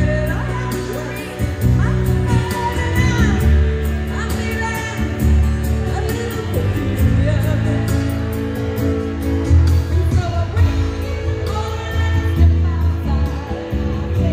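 A woman singing karaoke into a handheld microphone over a loud backing track with a steady bass beat, both played through the PA speakers.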